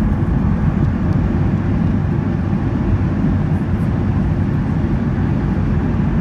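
Steady, loud rumble of an airliner's jet engines and rushing air, heard inside the passenger cabin during landing.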